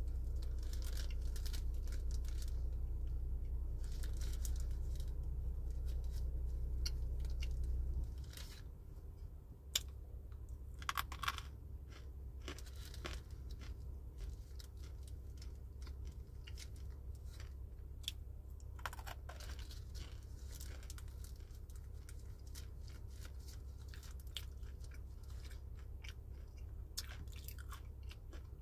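Close-up chewing and crunching of dry edible clay pieces (clay gems) in the mouth, with scattered sharp crunches, the strongest about eleven and nineteen seconds in. A steady low hum runs under the first eight seconds and then drops away.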